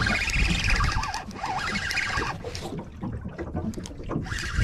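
Fishing reel being wound in as a fish is brought up from deep water: a wavering whirr for the first two seconds or so, over a low rumble.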